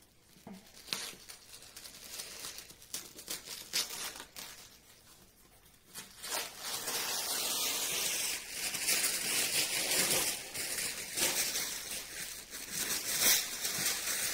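Tissue paper being unwrapped by hand: a few quiet rustles at first, then loud, continuous crinkling and rustling from about six seconds in as the paper is pulled open.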